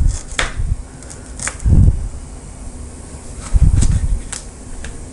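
Kitchen knife chopping ginger and then cutting a tomato on a plastic cutting board: three dull knocks of the blade against the board, with sharper short clicks between them, over a steady low hum.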